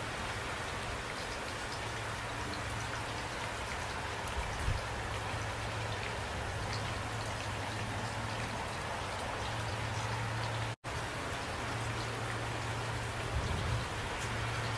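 Steady rain falling, an even hiss with scattered drop ticks and a low steady hum underneath, broken by a split-second gap of silence about eleven seconds in.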